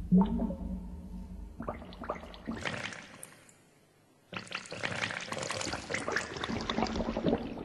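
Water pouring and fizzing with a dense crackle, in two stretches broken by a moment of silence just past the middle.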